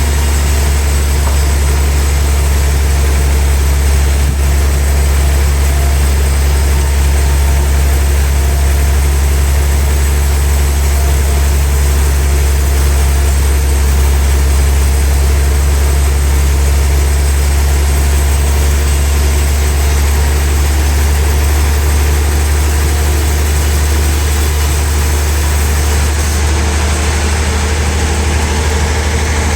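Sawmill machinery running steadily with a loud, constant low hum.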